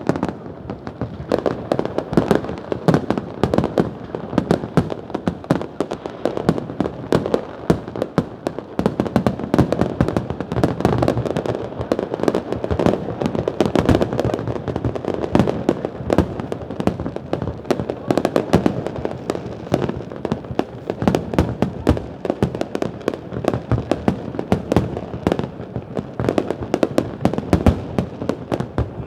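Fireworks display going off in a dense, continuous barrage: many sharp bangs overlapping one another with no pause.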